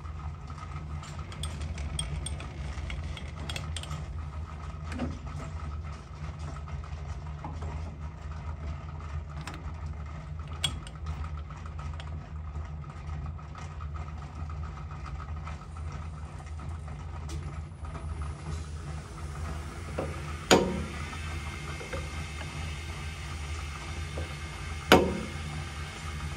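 Two sharp hammer taps on a workpiece in a metal lathe's chuck, about four seconds apart near the end, each ringing briefly, as is typical when truing a part against an indicator. Before them come small clicks of handling at the lathe, over a steady low machine hum.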